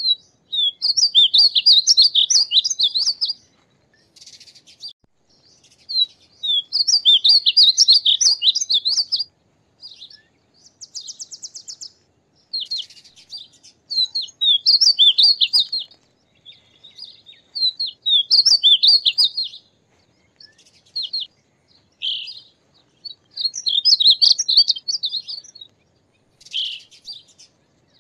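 Male painted bunting singing: high, sweet warbled phrases of about two to three seconds, repeated every few seconds, with short buzzy and chip notes in the gaps.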